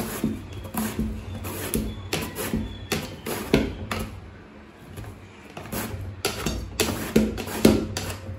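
Peeled raw banana pushed back and forth over a mandoline slicer's blade, giving a quick run of scraping strokes, about two a second. The cut slices drop onto a steel plate beneath.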